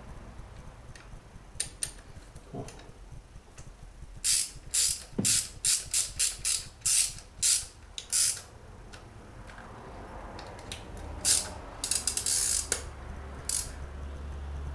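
Hand ratchet wrench clicking through a quick run of about ten strokes, then a few more near the end, as bolts are tightened.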